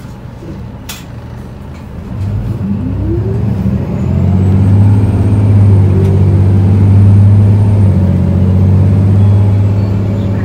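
Isuzu Erga city bus's four-cylinder turbodiesel pulling away from a standstill, heard from inside the cabin. A sharp click comes about a second in. The engine note rises about two seconds in and then runs loud and steady under acceleration, with a faint high whine over it.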